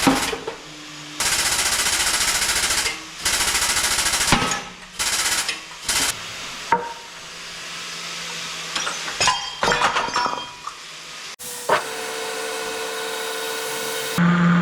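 Pneumatic hammering tool rattling in two long rapid-fire bursts, trying to drive a stuck part out of a Hilux hub, followed by metal knocks. Near the end a machine starts and runs with a steady hum.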